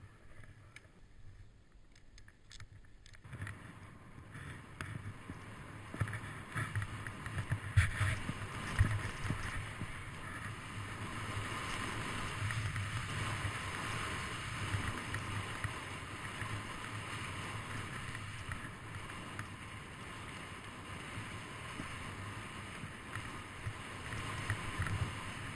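Snowboard sliding through powder snow with wind on the camera microphone: a steady rushing hiss and low rumble that starts about three seconds in, with a few sharp bumps between about six and nine seconds in.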